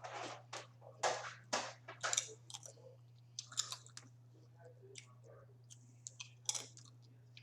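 Close-miked eating of garlicky crawfish: wet chewing and mouth smacks in irregular bursts, densest in the first two and a half seconds, with another cluster near the end. A steady low hum runs underneath.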